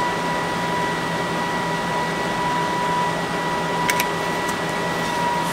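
Steady fan noise with a thin high whine and a low hum underneath, and a light click about four seconds in.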